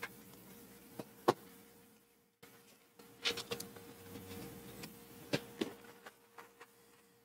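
Quiet work on a paper chaps pattern laid over leather: two light ticks, then a few seconds of soft scratchy rubbing with small ticks as the pattern is pressed down and marked through the holes punched along its zipper line.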